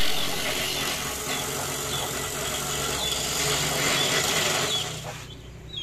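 Homemade electric coconut grater, its grater head spun by a small electric motor of about a quarter horsepower, shredding a coconut half pressed against it: a loud, steady grinding. The grinding stops about five seconds in, leaving the motor's hum.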